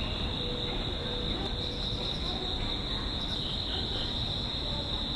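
Insects trilling steadily at a high pitch, over a low even rumble of background ambience.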